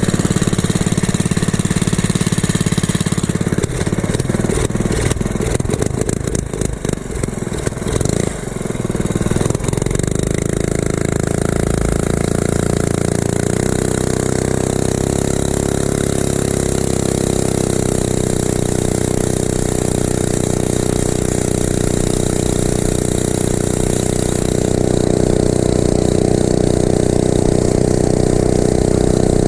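Small single-cylinder mini bike engine, its governor deleted, running under load during a ride. It sounds rough and uneven for the first several seconds, then settles to a steady pitch and gets louder near the end, with wind buffeting the microphone.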